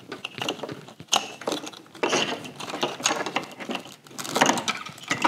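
Aftermarket tuner wiring harness being pushed and pulled between the plastic-sheathed wiring looms and hoses of a car engine bay: irregular rustling, scraping and small clicks of cable and connectors against plastic.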